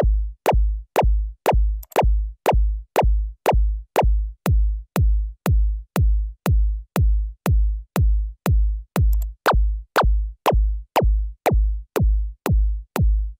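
Synthesized big-room kick drum from the BIGROOMKIXSYNTH plugin, repeating about twice a second; each hit is a fast downward pitch sweep into a deep, sustained low tail, its sweep shaped by a user pitch envelope being edited.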